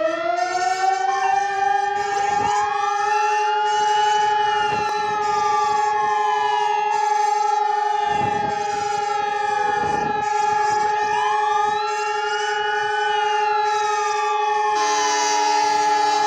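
Fire-engine sirens sounding together. A steady siren tone winds up at the start and then holds, while wailing sirens sweep up and down over it. A harsher, louder tone joins about fifteen seconds in.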